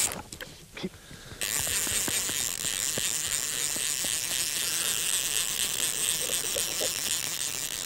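Fly reel's click-and-pawl ratchet running fast and steady while a hooked sea trout is being played. After a quieter second and a half with a few scattered clicks, the ratchet sets in about a second and a half in and holds steady.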